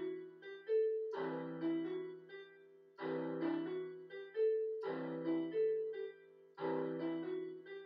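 Electronic keyboard played with a piano sound: a full chord struck about every two seconds, four times, with single melody notes picked out between the chords.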